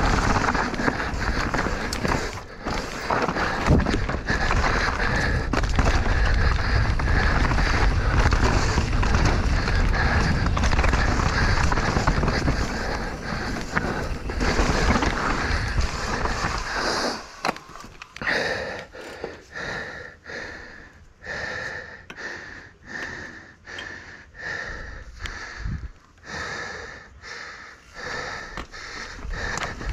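Mountain bike ridden on a trail: a loud, steady rush of tyre, wind and rattling noise. About 17 seconds in it drops away to the rider's hard breathing, in regular puffs a little faster than one a second.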